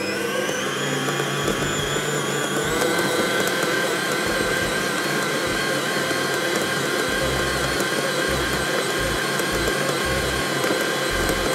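Electric stand mixer running with its dough hook kneading a soft yeast bread dough. The motor whine rises in pitch over the first two or three seconds as it comes up to speed, then runs steadily.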